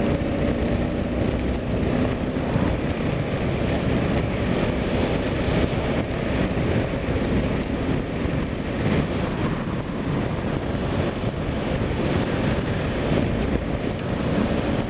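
Kawasaki KLR single-cylinder dual-sport motorcycle riding at road speed in the rain, its engine running steadily under wind noise on the microphone.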